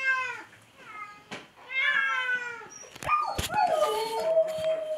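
Several Ragdoll cats meowing, with calls overlapping and one long drawn-out meow through the second half. Two sharp knocks sound about three seconds in.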